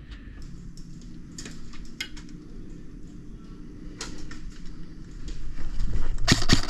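Scattered light clicks and knocks of handled gear over a low steady rumble, then near the end an airsoft gun opens up in a rapid full-auto burst of about ten shots a second.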